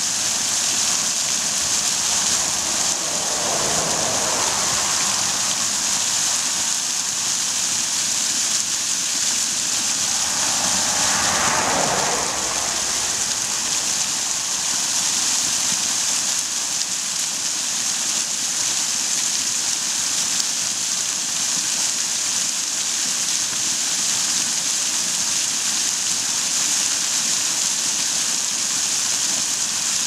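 Snowmelt waterfall pouring down a rock face and splashing onto the stones below, a steady hissing splash. Twice, about four and eleven seconds in, a passing vehicle's rush swells and fades beneath it.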